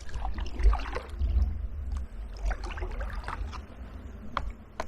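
Kayak paddle strokes splashing and dripping in shallow water, with a few sharp knocks and a low rumble underneath.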